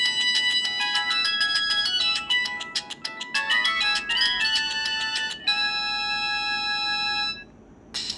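Samsung GT-E1150 mobile phone's polyphonic ringtone playing a quick melody of short synthesized notes, ending about five and a half seconds in on a long held chord. The chord stops, and a new ringtone starts just at the end.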